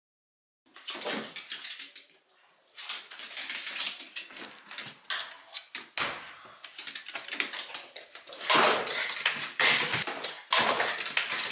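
A mameshiba (small Shiba Inu) clattering across a wooden floor, its claws clicking and scrabbling rapidly on the boards. The clicking is loudest in the second half.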